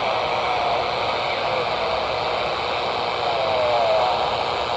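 Midland handheld radio's speaker hissing with static while it picks up a distant station from Japan over long-distance propagation; a faint, wavering voice comes through under the noise.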